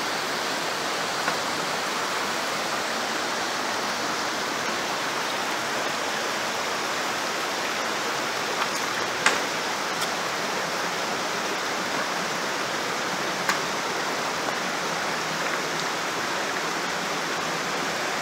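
Mountain torrent rushing steadily over rocks in a narrow gorge, with a few brief sharp clicks over it.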